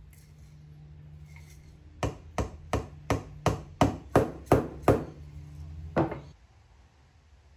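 A wooden mallet knocks a freshly glued hardwood stool frame to close its joints: nine quick blows, about three a second, then one last blow a second later.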